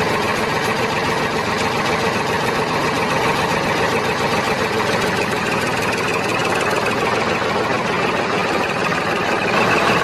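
An engine or motor running steadily with a fast, even rattle that does not change in speed.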